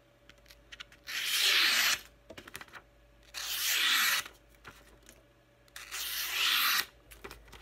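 Freshly stropped carbon-steel hunting knife slicing through a sheet of paper: three cuts, each a hissing slice of about a second, with short pauses between them. The clean slicing shows a razor-sharp edge.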